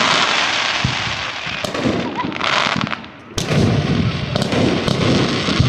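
Fireworks display: about five sharp bangs of shells bursting a second or so apart, with stretches of hissing crackle from crackling stars and a low rumble between them.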